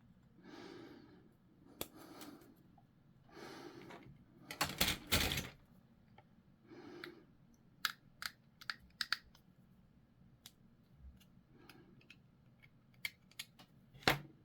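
Plastic miniature parts and sprue being handled and snipped with hobby clippers: scattered sharp plastic clicks and snaps, with a louder rattle of plastic about five seconds in and a quick run of clicks a few seconds later.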